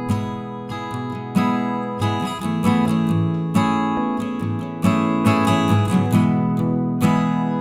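Background music: strummed acoustic guitar playing chords with a steady rhythm.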